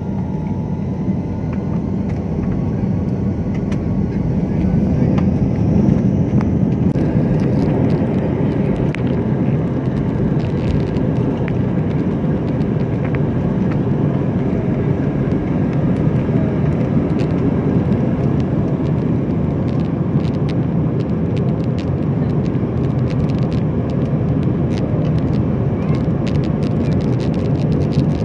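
Jet airliner's engines at take-off thrust, heard from inside the cabin during the take-off roll and lift-off: a loud steady rumble that builds over the first few seconds, with a faint rising whine at the start. Many short sharp rattles and clicks come as the plane runs down the runway.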